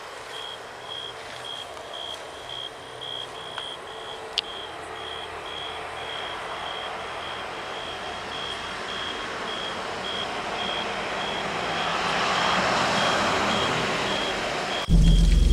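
Vehicle reversing alarm beeping steadily, a high beep about twice a second, over a rushing noise that swells after about ten seconds and then eases. A loud low rumble cuts in suddenly near the end.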